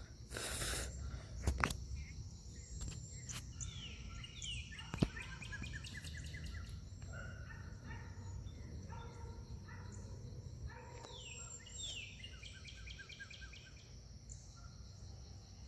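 Birds singing outdoors, each phrase a falling slur followed by a quick run of repeated notes, heard twice, over a steady high drone of insects. A short loud rustle comes near the start, and sharp handling clicks come about a second and a half and five seconds in.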